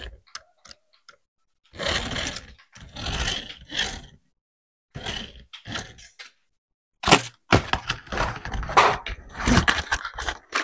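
Handling of toy packaging and plastic parts: short bursts of rustling and crackling with sharp plastic clicks, separated by dead silence. The clicks come thickest in the last few seconds.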